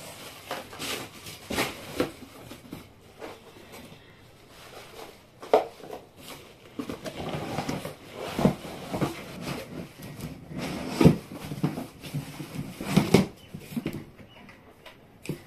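Unpacking handling noise: plastic flower pots knocking and clattering as they are stacked and lifted, with the cardboard box's flaps and plastic wrapping rustling. Irregular knocks come throughout, the sharpest a little past a third of the way in and several more in the second half.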